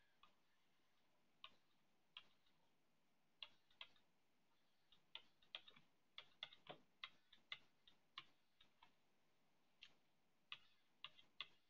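Faint, irregular clicks of a stylus tip tapping on a tablet screen during handwriting, sparse at first and coming in quick clusters through the middle.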